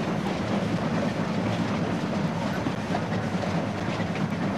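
Goods train hauled by a Canadian-built, oil-fired steam locomotive running steadily, heard from the footplate. A continuous low rumble with faint clatter of the wheels on the rails.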